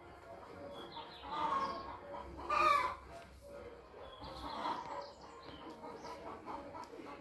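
Several short farm-animal calls, the loudest about two and a half seconds in.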